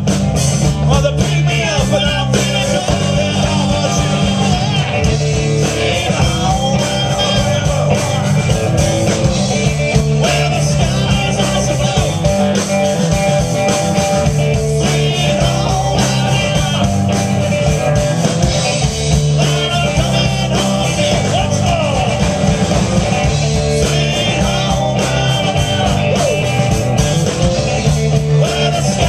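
A live rock band playing amplified: electric guitars, electric bass and drum kit, loud and continuous.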